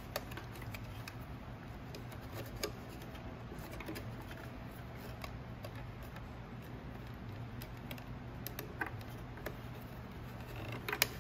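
Light, scattered clicks and taps of a plastic terminal cover and wires being handled and pressed into place, over a steady low hum. A few sharper clicks come close together near the end.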